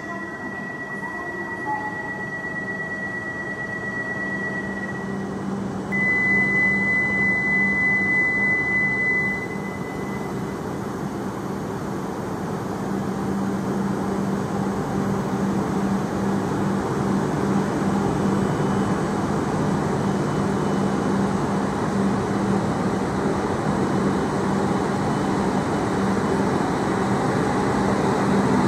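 A high, steady electronic tone sounds at the platform and comes back louder for about three seconds, about six seconds in. Then the E5 series shinkansen pulls out, its running noise building steadily as the train gathers speed alongside.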